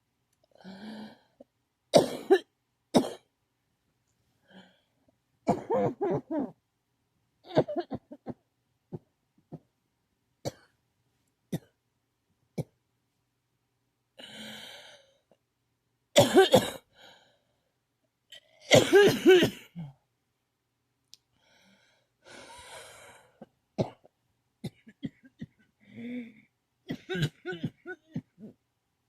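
A person coughing in repeated bouts, single coughs and quick runs of several, with breaths drawn between them. The loudest runs come a little past halfway.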